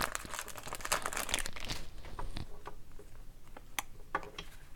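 Crinkling of a foil trading-card pack wrapper, dense for about the first two seconds, then light clicks and taps as the cards are handled and shuffled.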